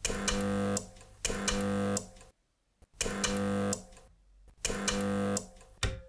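Homemade microwave-oven-transformer spot welder firing four pulses, each a buzzing hum just under a second long with crackling sparks, starting and stopping sharply as nickel strips are welded onto lithium cells, with a short fifth blip near the end.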